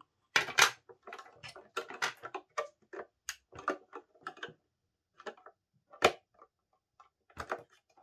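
Hard plastic parts of an AquaClear 30 hang-on-back aquarium filter clicking and knocking irregularly as they are fitted together, a part that is hard to seat. There is a short pause near the middle, and the loudest knock comes about six seconds in.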